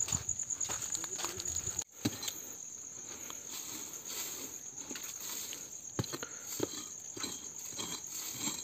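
Insects chirping steadily in a high pitch throughout. Footsteps crunch on dry ground and leaves at about two a second for the first two seconds. After that come a few sharp knocks and scrapes of a blade digging into dry soil around a tree stump.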